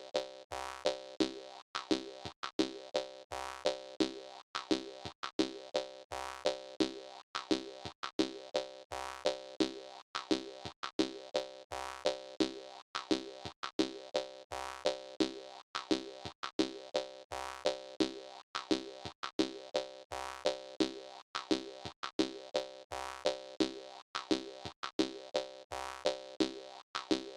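Jaw harp playing a rhythmic, danceable tune: a steady run of twanging plucks, about two to three a second.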